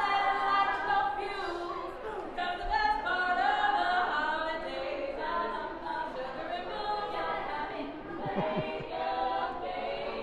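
A cappella vocal group singing a Christmas song in close harmony, several voices together without instruments.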